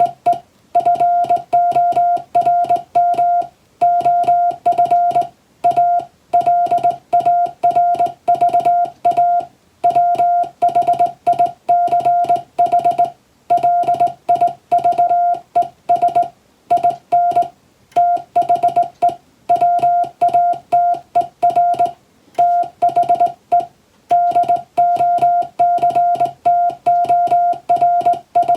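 Morse code in English, sent as a steady mid-pitched beep keyed on and off in quick dots and dashes, with short breaks between letters and words.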